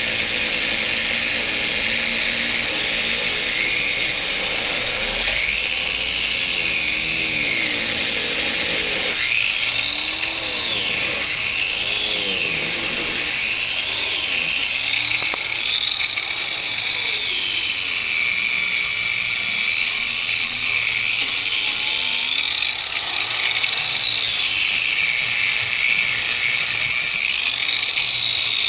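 A hand-held power tool running continuously, its high whine rising and falling in pitch as it is loaded and eased off.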